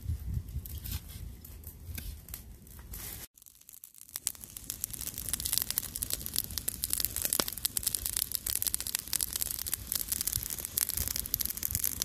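A machete chopping red chilies on a wooden board, a few dull knocks. After a short break, chicken gizzards and livers start sizzling in hot oil in a steel wok, a dense crackle that grows louder.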